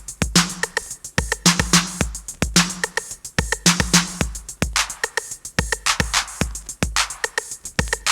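Early-1980s hip hop drum-machine beat: a repeating pattern of kick drums, crisp hand claps and hi-hat ticks under a short, repeating bass riff, with no vocal yet.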